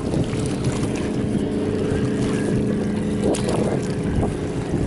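A steady motor drone with several held tones, mixed with wind on the microphone.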